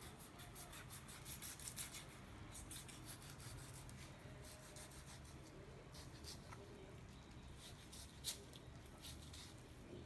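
Faint sound of a knife slicing raw fish on a cutting board: light scraping and small ticks, with one sharper tap about eight seconds in.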